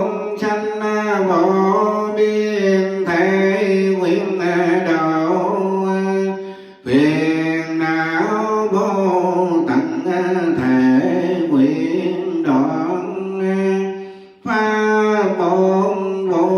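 Buddhist devotional chanting sung in long, drawn-out phrases over a steady low drone. There are three phrases, each about seven seconds long, with short breaths between them about seven seconds and about fourteen seconds in.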